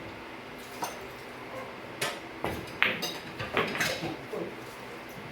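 Billiard balls clacking: a string of about six sharp clicks, the loudest a little under three seconds in, as the cue ball is struck and balls hit one another.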